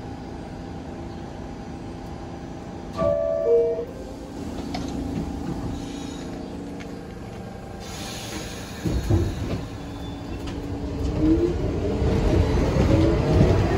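New York City subway train at a station: a short two-note falling chime about three seconds in, then a train getting under way, its motor whine rising in pitch as the rumble grows louder over the last few seconds.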